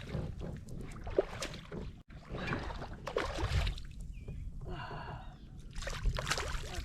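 Knocks, clicks and splashing from handling fishing tackle and a fish aboard a kayak on the water, over a low rumble. There is a short pitched sound about five seconds in.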